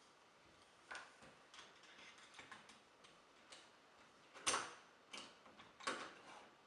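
Light clicks and taps of metal door-knob parts being handled and fitted together, with two sharper knocks about four and a half and six seconds in.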